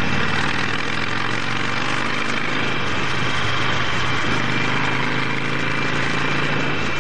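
Motorcycle engine running steadily while riding, under a constant rush of wind and road noise.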